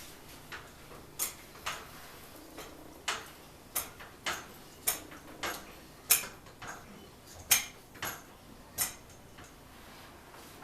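Sharp metallic clicks, one every half second to second with some louder than others, from a jack being cranked to lift the truck.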